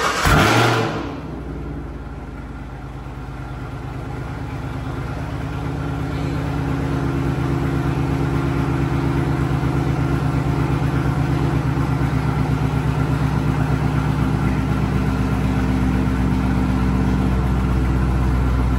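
Chevrolet Camaro's engine cold-starting at about 40 °F: a loud flare in the first second as it catches, then a steady idle that grows slowly louder.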